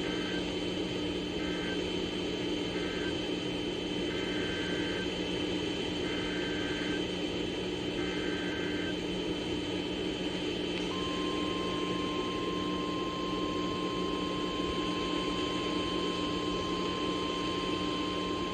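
Emergency Alert System data bursts from NOAA Weather Radio: three short bursts of warbling two-tone data (the end-of-message code), then three longer bursts (the SAME header of the next alert). About eleven seconds in, the steady 1050 Hz weather radio warning tone begins and holds, over constant radio hiss and hum.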